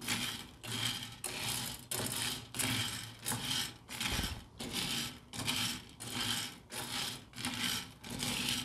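Dry yellow corn kernels rattling and scraping in a metal frying pan as a wooden spoon stirs them, in a steady rhythm of about one and a half strokes a second. The corn is being dry-toasted over a low flame.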